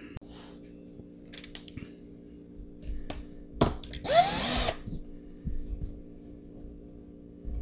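Cordless drill spinning briefly, well under a second, as its bit is run into a block of beeswax to lubricate it for drilling metal. A few light clicks of handling come before it, over a steady low hum.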